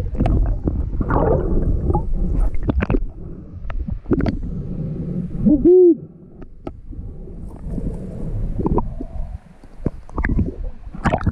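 Underwater sound from a freedive in a river: a muffled rumble of moving water with scattered knocks and clicks of rocks and handling. About halfway through, a short hooting vocal sound rises and falls in pitch, the diver's voice heard underwater, and it is the loudest thing here.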